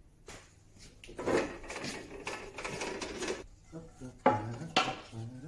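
Wooden offcut boards being shifted, scraping and rubbing against each other and the wall, then two sharp wooden knocks near the end as they are set down.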